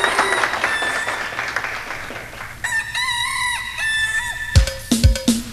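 Applause dies away, then a rooster crows, a long call followed by a shorter one. About a second before the end, a steady drum beat starts: the song's intro coming in.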